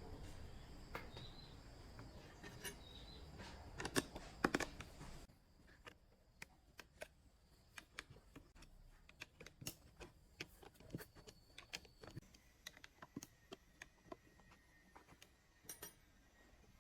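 Scattered light clicks and taps from handling tools and workpiece, with a louder cluster of knocks about four seconds in; a low background hum drops away about five seconds in.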